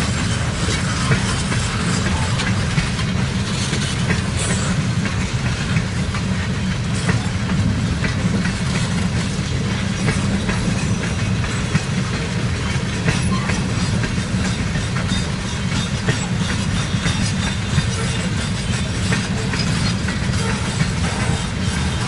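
Freight train cars, mostly tank cars, rolling steadily past: a continuous low rumble of wheels on rail with scattered clicks and clacks from the wheels crossing rail joints.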